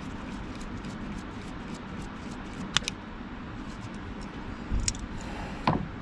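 A few sharp small clicks and taps of a screwdriver and meter test leads handled on compressor wiring, the clearest about three seconds in, with a brief low thump near the end, over a steady low background hum.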